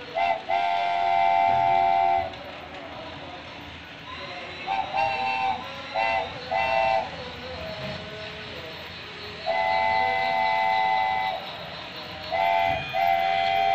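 Steam-locomotive whistle of a model train sounding as a chord of steady tones: a short toot and a long blast at the start, a quick run of short toots about five seconds in, another long blast around ten seconds, then a short and a long toot near the end, over the steady running noise of the train.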